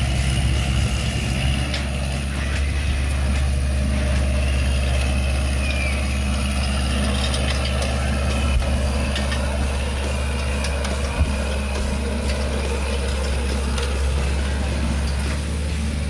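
Kubota L5018 tractor's four-cylinder diesel engine running at a steady speed.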